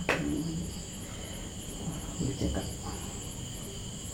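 Crickets chirping: a steady high trill with quick paired chirps repeating above it, about three a second. A single sharp click comes just after the start.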